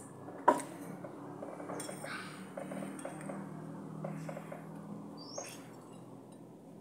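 Metal spoon clinking against a ceramic plate: a sharp clink about half a second in, light taps and scrapes after it, and another clink about five seconds in.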